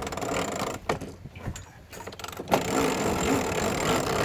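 Strong wind buffeting the microphone on a small sailboat, a gusty rushing noise that eases for a moment in the middle, then comes back.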